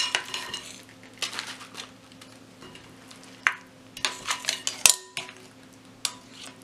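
A silicone spatula scraping mashed avocado around a glass mixing bowl, with irregular knocks and light clinks of a metal spoon against the glass, bunched about four to five seconds in.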